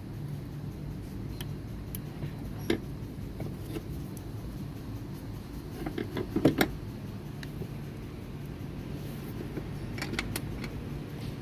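Hand work on seatbelt hardware inside a car: scattered light clicks and clatters of metal and plastic parts being handled, with a louder cluster of knocks about six seconds in, over a steady low hum.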